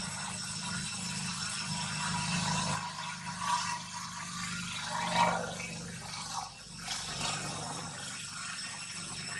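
Outdoor ambience with a steady high-pitched hum and a low rumble under it, and two short sounds about three and a half and five seconds in, the second the loudest.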